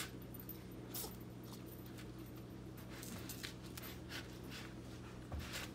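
Kitten scratching and shuffling in granular cat litter in a plastic litter box: scattered short, scratchy rustles at irregular intervals, over a steady low hum.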